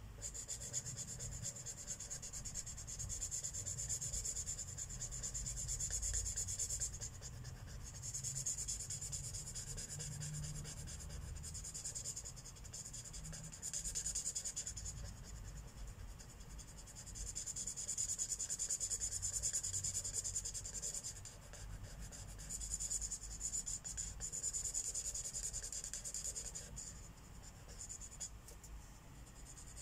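Marker tip rubbing across paper in colouring strokes: a soft, high hiss in runs of a few seconds with brief pauses between.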